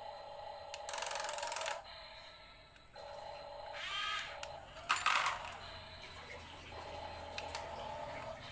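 Small electric motor of a toy excavator whining steadily, with a burst of rattling about a second in and sharp clattering halfway through, like small stones tipping out.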